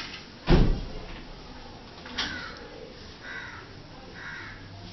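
A single sharp thump about half a second in, then a click and three short bird calls, the first falling in pitch.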